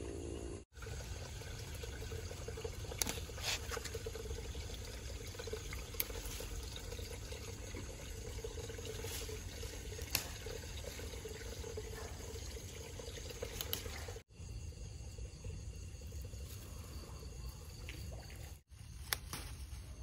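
Steady rushing, trickling water-like noise with a faint hum and a few light clicks, broken by three brief dropouts.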